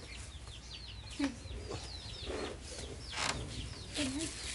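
Chickens: chicks peeping over and over in short, falling cheeps, with a low cluck about a second in and another near the end, and a few brief rustles.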